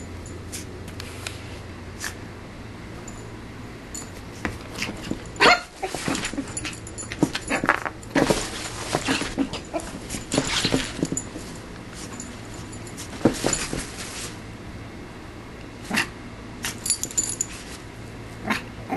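Shih tzu puppy yipping and barking in short bursts, mixed with sharp rattles and knocks of the playpen as she bounces against its walls. The bursts start about five seconds in and come in several clusters.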